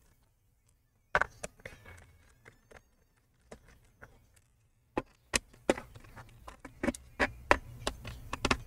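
Scattered sharp clicks and taps of a Phillips screwdriver and small loose screws against a laptop's plastic bottom cover while the cover's screws are being removed. The taps start about a second in and come more often in the second half.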